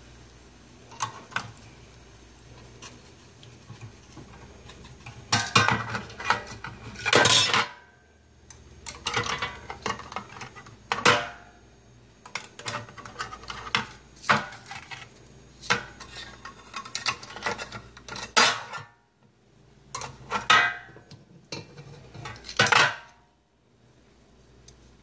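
Metal tongs and a table knife clinking and scraping against each other and the ribs' foil-lined air fryer basket, in irregular clatters that come and go, loudest a few seconds in and again near the end.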